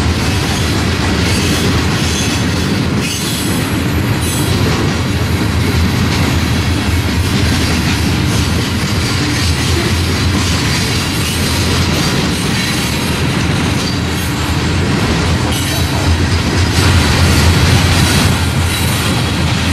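Freight train of coal hopper cars rolling past: a steady rumble of steel wheels on rail with irregular wheel clicks, a little louder near the end.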